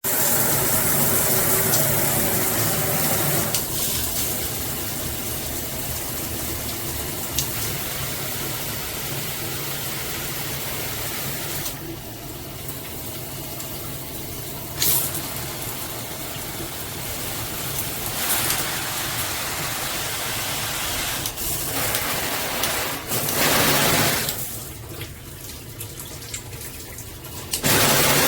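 Water spraying from a shower head in a steady rush, the sound shifting in level and tone several times.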